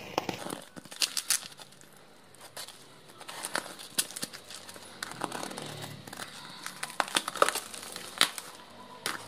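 A plastic courier mailer wrapped in packing tape being jabbed open with a pen and torn back by hand, crinkling and crackling in irregular bursts, with a brief lull about two seconds in.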